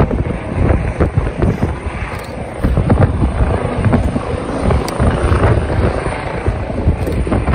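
Eurocopter EC135 rescue helicopter lifting off and hovering, its main rotor beating rapidly and loudly.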